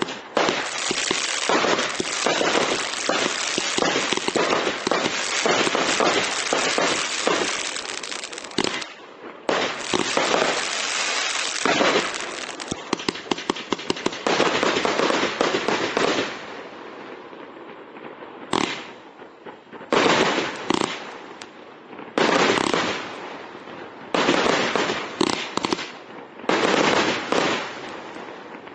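Kung Fu Master firework barrage cake firing: shots launch and burst in rapid succession. It is a dense, near-continuous run of bangs for the first half, then separate volleys with short gaps in the second half.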